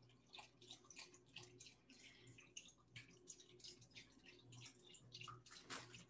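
Beef broth poured from a carton into a plastic pressure cooker pot: faint, irregular splashing of liquid.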